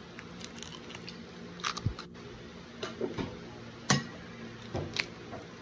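Raw egg poured into a glass mixing bowl of diced vegetables: a few scattered light taps and soft wet plops over a faint steady hum.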